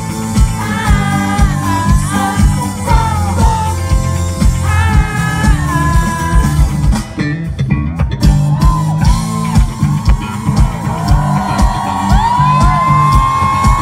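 Live rock band playing, with a steady drum beat, bass guitar, electric guitar and singing.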